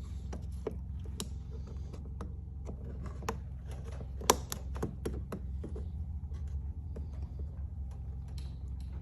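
Irregular clicks and light knocks of generator parts being handled and fitted by hand, with one sharp click about four seconds in, over a steady low hum.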